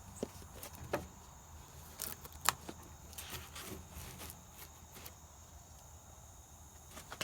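Cardboard product box being handled: scattered light taps, clicks and rustles, the loudest about two and a half seconds in.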